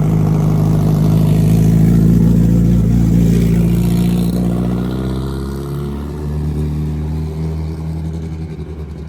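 Car engine running with a steady note that eases off and grows quieter about halfway through.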